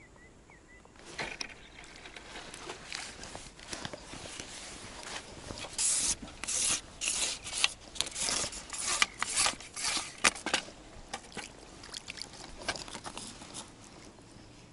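Close rustling and scraping handling noise, jacket sleeves and hands moving against the body-worn microphone, as a hooked roach is played on a long fishing pole and lifted from the water, with splashing from the fish at the surface. The noise starts about a second in and is busiest in the middle.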